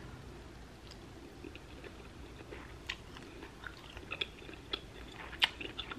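Close-miked chewing of soft cooked cabbage: quiet, wet mouth clicks that come more often in the second half, the sharpest near the end.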